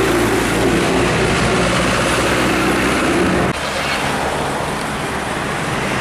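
Vehicle engine idling close by over road traffic noise. The sound changes suddenly and drops a little about three and a half seconds in, then carries on.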